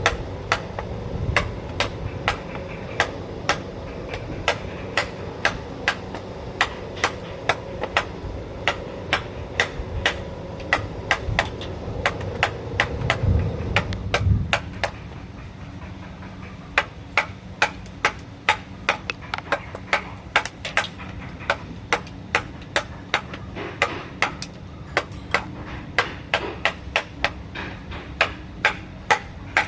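Wood-carving chisel struck again and again with a mallet, sharp knocks at roughly one to two a second, sometimes in quick runs. A steady low hum underneath stops about halfway through.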